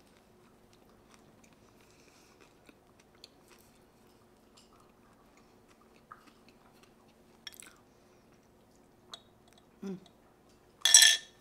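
Faint steady low hum with scattered soft clicks, then a short low voiced sound and a loud, brief rustling or handling noise near the end.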